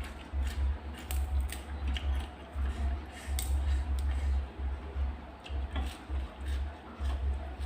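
A person eating close to the microphone: chewing with scattered light clicks, over an uneven low thumping.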